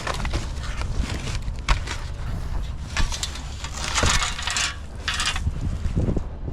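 Metal bed rails being pulled out from under a mattress: scattered knocks and clanks with scraping and rustling, loudest about four and five seconds in.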